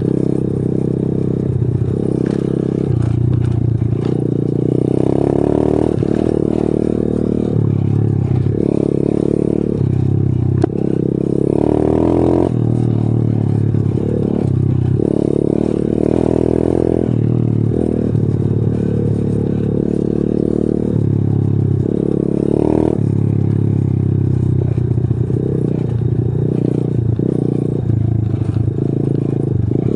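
Pitbike 125's single-cylinder four-stroke engine running under load while being ridden over a rough dirt track, its pitch rising and dropping over and over with throttle and gear changes. The bike rattles and clatters over the bumps.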